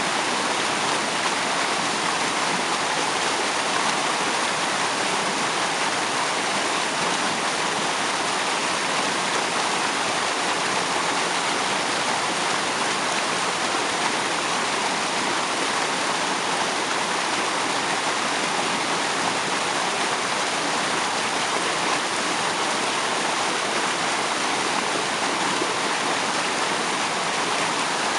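Waterfall spray: a steady, unbroken rush of falling, splashing water.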